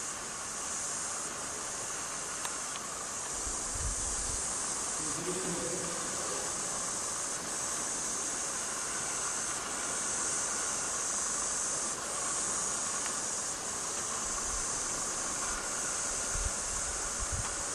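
Insects buzzing in a steady high-pitched chorus that swells and eases every couple of seconds.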